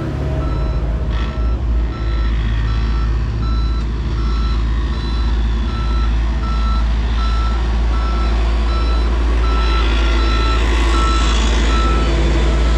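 Reversing alarm of a heavy road-construction vehicle beeping at an even pace over the steady low rumble of its engine.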